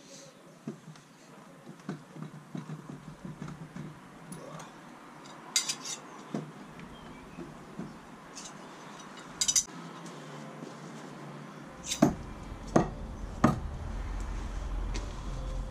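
Steel throwing knives clinking against each other and striking a wooden log-round target: a few sharp metallic clicks, then three hard hits well under a second apart near the end.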